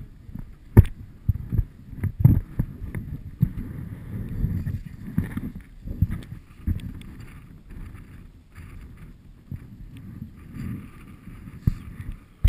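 Wind buffeting an action camera's microphone in irregular low gusts, with a few sharp knocks in the first couple of seconds.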